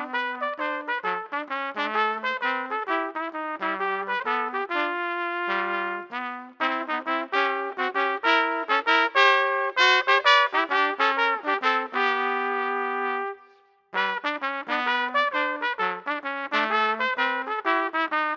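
Two trumpets playing a swing jazz duet in mostly short, detached notes. About two-thirds of the way through they hold a long note, break off for half a second, then go on.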